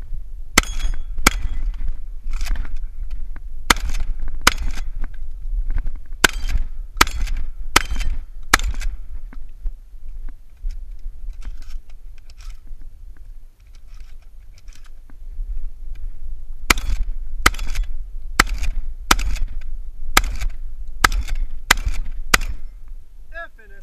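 Shotgun firing birdshot in two fast strings of shots, each of roughly ten shots, with a quieter pause of several seconds between them.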